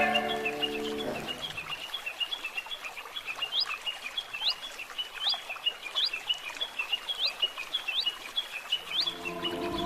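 Small birds chirping with rapid, repeated short notes, joined by a quick rising whistle repeated about once a second.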